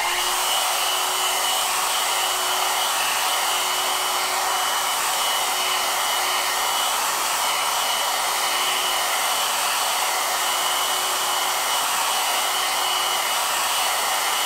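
Hand-held hair dryer blowing steadily over a wet watercolour painting, drying the paint: an even rush of air with a thin high whine from its motor.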